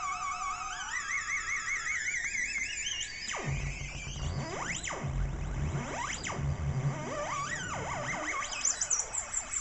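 MFOS Alien Screamer noise-box synth: a warbling electronic tone climbs upward in steps with trailing echoes, then about three seconds in it breaks into fast swooping pitch sweeps up and down over a pulsing low buzz, with quick chirps near the end.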